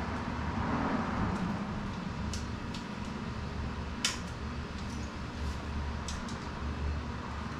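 A few light clicks and taps of small parts and hand tools as handlebar components are fitted on an e-bike. The sharpest click comes about four seconds in, over a steady low hum.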